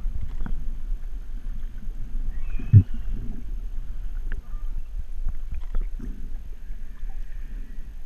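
Underwater sound near humpback whales: a steady low rumble of water against the camera housing with scattered clicks and a dull knock about three seconds in, over faint high calls from the whales.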